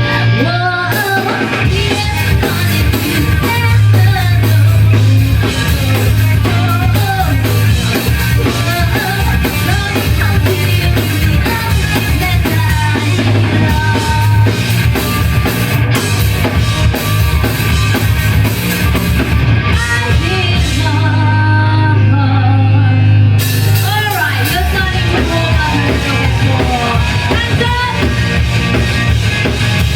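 Live rock band playing loud with drum kit and singing.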